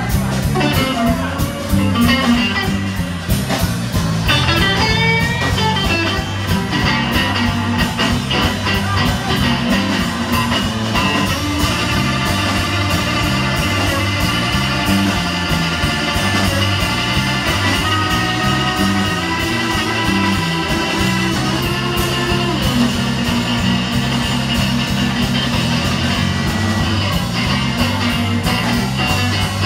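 Live blues band playing an instrumental stretch on electric guitar, bass and drums, with a steady bass line underneath and no singing.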